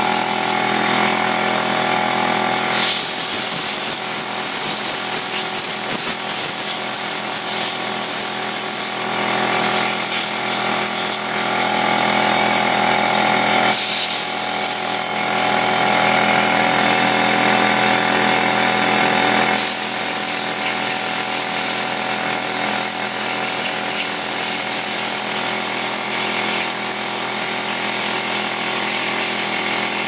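A machine's motor running steadily, a hum of many even tones under a hiss that grows louder and drops back several times, about a third of the way in and again near the middle.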